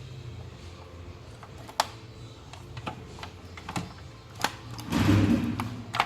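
Scattered clicks and light knocks of small plastic and metal parts being handled while an Xbox One is taken apart, with a louder scraping rustle about five seconds in, over a steady low hum.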